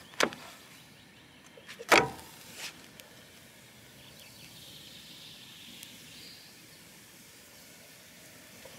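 A pancake being flipped with a spatula in a frying pan on a camping gas stove: two sharp knocks of spatula and pan, the louder one about two seconds in, then a faint hiss of the pancake frying.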